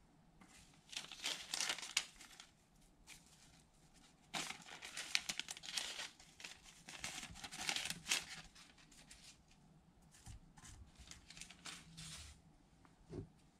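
Thin gold metallic foil sheets crinkling and crackling as they are handled and crumpled by hand, in three main spells with fainter crackles between.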